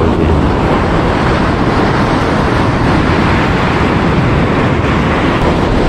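Surf breaking and washing up a beach: a steady, loud rush of noise.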